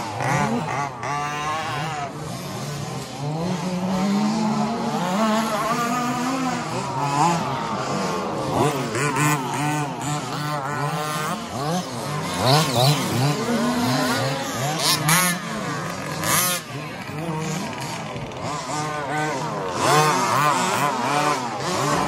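Remote-control 2WD buggies racing on a dirt track, their electric motors whining and repeatedly rising and falling in pitch as they accelerate and brake, several overlapping at once. Sharp ticks and scrabbling from the tyres and dirt come through, most often in the middle.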